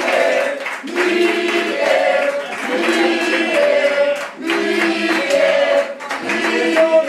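A group of boys singing a chant in unison, short rhythmic phrases repeated over and over, a team cheer for their coach.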